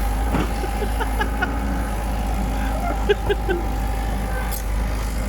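Komatsu PC78UU compact excavator's diesel engine running steadily with a low, even rumble.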